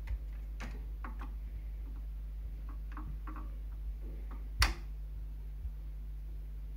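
Chinon Audio Reflex PL-25 turntable running its auto-return cycle: the mechanism clicks and ticks as the tonearm lifts and swings back to its rest, with one loud click about four and a half seconds in. A low steady hum runs underneath.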